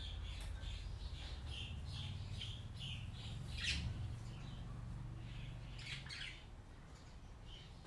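Small birds chirping and squawking in short, repeated calls, a few a second, over a low steady hum that drops away about six seconds in.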